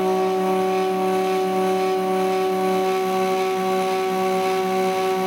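Stepper motors of a homemade CNC hot-wire foam cutter whining as they turn the threaded rods that move the wire through the foam. The sound is several steady tones at once, and some of them shift to new pitches about three seconds in as the motors change speed.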